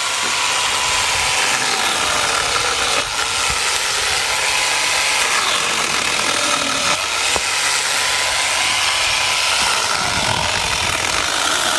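Angle grinder fitted with a chainsaw bar-and-chain attachment running at high speed and cutting through a plum tree trunk: a loud, steady high-pitched motor whine with the chain rasping through the wood.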